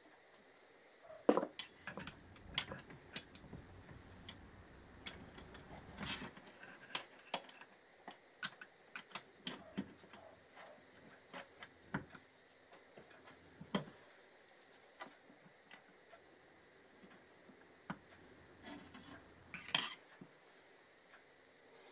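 Irregular metallic clicks, clinks and light knocks of steel transmission gears and shafts being handled and fitted into the crankcase of a Kawasaki KZ650 engine. The louder knocks come about a second in and in a short cluster near the end.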